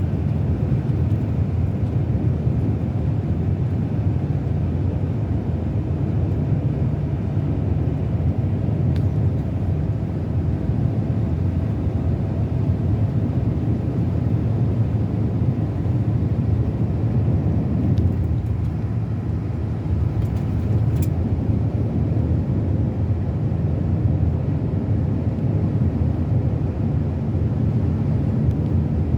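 Scania K360 coach engine running steadily as the bus drives along, a continuous low drone with a short change in tone about two-thirds of the way through.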